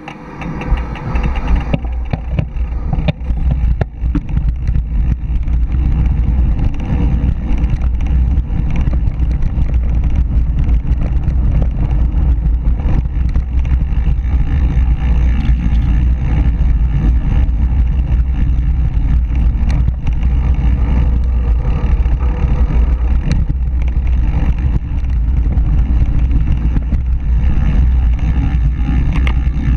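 Wind rushing over the microphone and a mountain bike's tyres rumbling on a dirt trail, a steady loud rush with a few sharp knocks from bumps.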